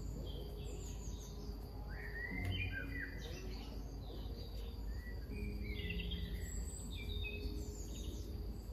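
Several birds singing and chirping, with short whistles and trills coming every second or so, over soft low held notes.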